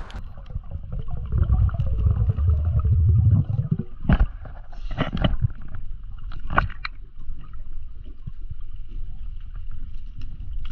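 Underwater sound picked up by a camera below the surface: a low gurgling rumble of moving water, heaviest in the first three and a half seconds, with a few sharp knocks about four, five and six and a half seconds in.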